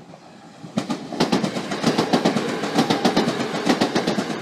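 Rapid, uneven clattering, many knocks a second, starting about a second in and dying away near the end.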